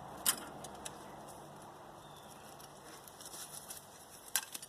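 A few sharp clicks and clinks from copper windings being worked out of an electric motor's armature: one a fraction of a second in, light ticks a little past halfway, and two close together near the end.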